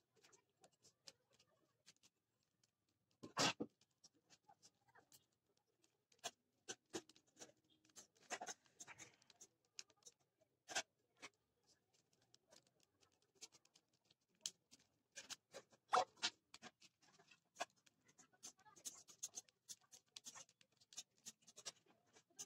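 A mirror puzzle cube's plastic layers being turned by hand: faint, irregular clicking and clacking, with three louder clacks spread through.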